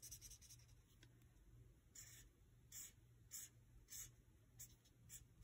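Felt-tip marker scratching faintly across paper in about six short colouring strokes, the strokes starting about two seconds in.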